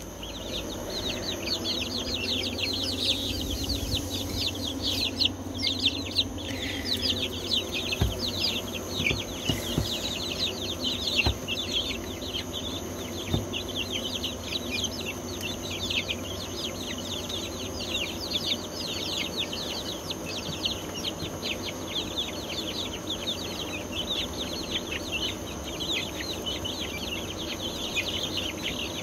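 A brood of young chicks peeping continuously, many short, high, falling cheeps overlapping, with a faint steady high tone underneath.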